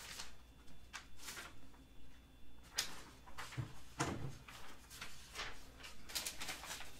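Faint handling noises: a run of soft rustles and scrapes, about two a second, with a couple of sharper ones about three and four seconds in.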